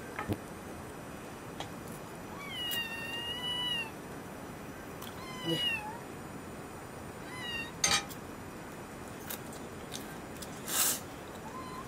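A kitten meowing: one long, high call, then two shorter ones and a faint one near the end. A few sharp clicks and a short scrape come in between.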